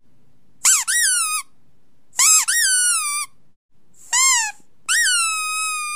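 A recorded test sound for dogs: a series of high-pitched whining cries, each one rising and then falling in pitch. Three short cries are followed by a longer one about five seconds in that holds its pitch.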